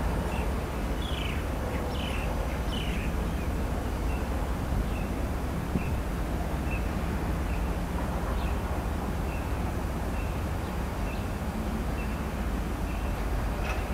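Small birds chirping: a few quick falling chirps, then a short high note repeated roughly once a second, over a steady low background rumble.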